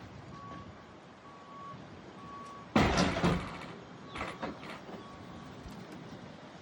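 A vehicle's reversing alarm beeping, one short high beep about every second. About three seconds in there is a short, loud burst of rustling noise, with smaller ones a second later.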